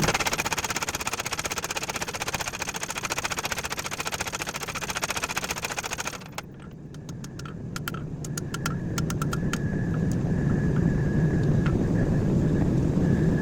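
Power hammer pounding a hot steel knife blank in rapid, even blows, then stopping abruptly about six seconds in. A steady low roar carries on underneath, with a few light ticks just after the hammer stops.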